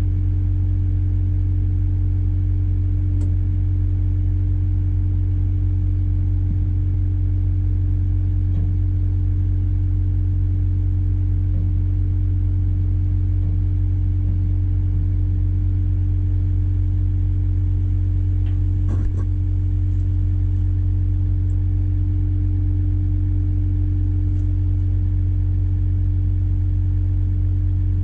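Komatsu PW160 wheeled excavator's diesel engine running at a steady, constant speed: a loud, even, low drone, with a faint brief click about nineteen seconds in.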